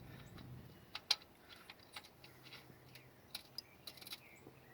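Faint, irregular small clicks and ticks of a transmission drain plug being threaded in by hand, with grit crunching in the threads: sand and metal shavings from the manual transmission.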